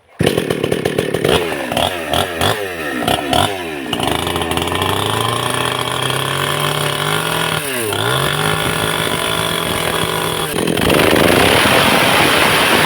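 Chainsaw starting up and revving in short uneven bursts, then running at a steady, slowly climbing speed with one brief dip in pitch. About eleven seconds in it becomes a louder, harsh rasp as the chain is put against an iron rod.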